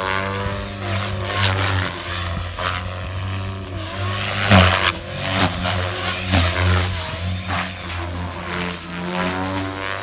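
Align T-Rex 500X electric RC helicopter flying aerobatics: a steady rotor hum under a motor whine that glides up and down, with loud whooshes from the main rotor blades about once a second as it flips and turns.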